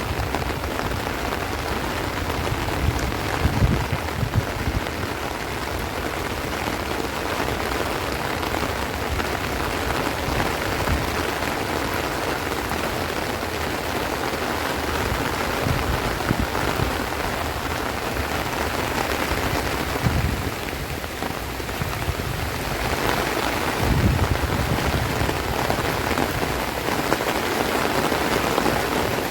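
Heavy rain falling steadily on rice plants and trees, a dense unbroken hiss. A few brief low rumbles from wind gusts come and go through it.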